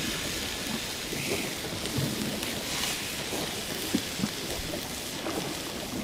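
Raw beef steak sizzling on a hot cast-iron grill pan over a wood fire: a steady hiss, with a few short pops scattered through it.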